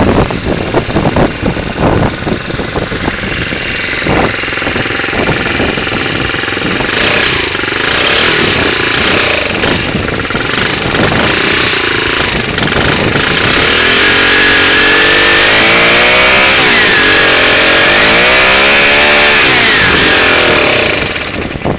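Small four-stroke engine of a Golden Eagle motorized bicycle kit running, heard at its exhaust: at first a rough idle with separate, uneven firing knocks. Over the second half it is revved up and held, the pitch sagging and rising again, before it drops back just before the end.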